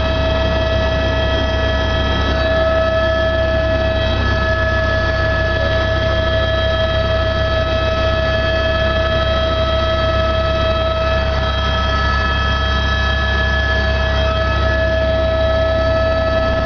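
Helicopter in flight, heard from the cabin: a steady high whine from the turbine and gearbox over a constant low rotor drone, unchanging throughout.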